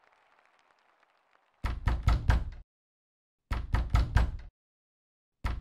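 Knocking sound effect: a quick run of four or five sharp knocks starting about a second and a half in, a second run about two seconds later, and a third just beginning at the end, with dead silence between the runs.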